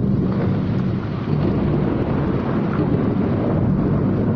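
Thunder rumbling loudly and without a break over the steady hiss of heavy tropical rain.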